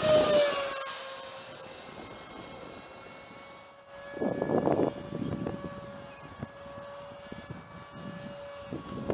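Freewing F-18 radio-controlled jet's 64 mm electric ducted fan whining as it passes close by, its pitch falling at the start, then settling into a steady, fainter whine. Wind buffets the microphone in bursts from about four seconds in.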